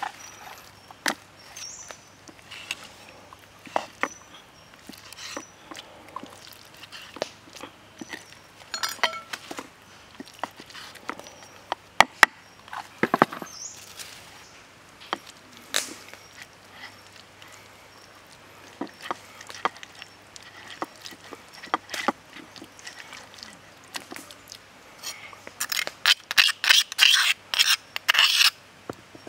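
Food-prep handling noise: scattered clicks and knocks of a raw chicken leg and a metal spoon being moved about on a wooden cutting board beside a stone mortar. Near the end comes a quick run of clicks as chunky marinade is scraped out of the stone mortar onto the chicken.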